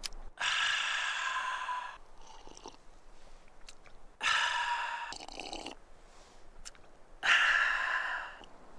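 A man drinking from a steel camping cup and breathing out hard: three long breathy sounds, each one to two seconds, with short gaps between.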